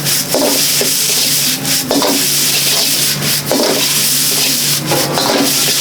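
Fried rice sizzling as it is stir-fried in a wok, a metal ladle repeatedly scraping and clattering against the pan over a steady low hum.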